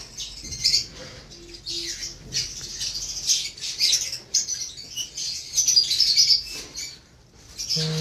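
A roomful of caged lovebirds chirping and chattering together, a dense, fast, high-pitched twittering that eases briefly near the end.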